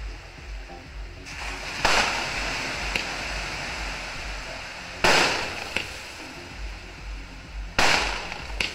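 Fireworks going off, with aerial shells bursting overhead: three loud, sharp bangs about three seconds apart, each trailing off over a second or more, with smaller pops in between.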